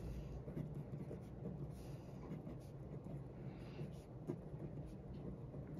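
Pen writing on paper: faint, soft scratching of pen strokes as words are written out, over a low steady hum.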